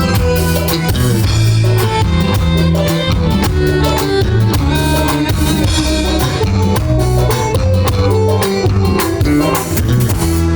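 Live band playing loud music with a drum kit keeping a steady beat over held bass notes and melodic instruments.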